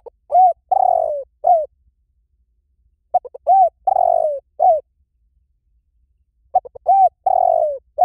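Spotted dove cooing: three repeated phrases of several low coos, a long falling coo in the middle of each, about three seconds apart.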